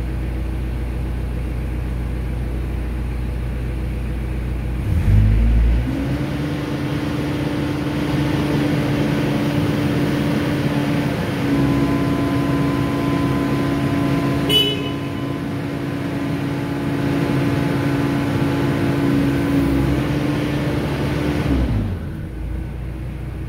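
Cat 307C excavator's diesel engine and hydraulic pumps: idling at first, then a thump about five seconds in as the boom is raised with full two-pump flow through the flow meter, the pitch rising and holding under load before dropping back near the end. A short horn beep about halfway through marks the full boom raise.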